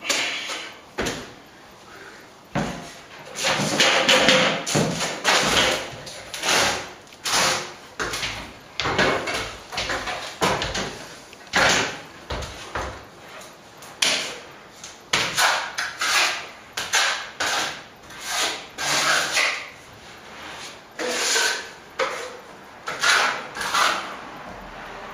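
Plastering trowel scraping wet set-coat plaster across a wall, in repeated uneven strokes about one or two a second.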